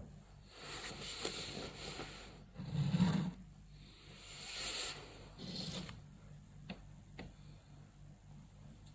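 Stomach growling and gurgling, in several swells of rumble and fizz, the deepest and loudest about three seconds in. Two short clicks follow near the end.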